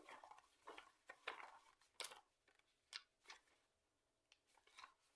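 Faint paper rustles and flicks as pages of a book are leafed through, several short irregular strokes with a brief quiet gap past the middle.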